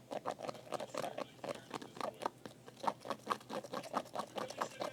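A shampoo and baking-soda slime mixture being stirred in a small container: a quick, irregular run of small clicks, about five or six a second.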